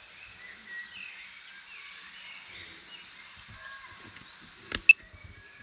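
Birds chirping and singing over an outdoor background, with a sharp click and a short high note near the end.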